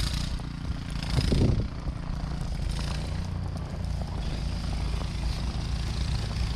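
A vehicle engine running steadily, with a brief louder swell about a second in.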